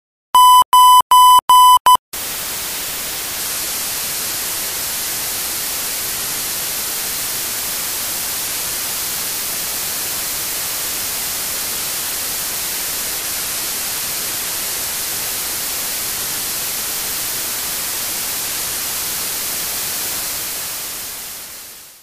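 A short run of Morse code beeps: a steady high-pitched tone keyed on and off several times in under two seconds. Then a steady hiss of white noise, like radio static, which fades out near the end.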